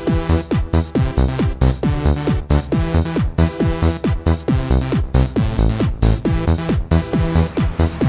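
Background electronic dance music with a steady kick-drum beat, about two beats a second.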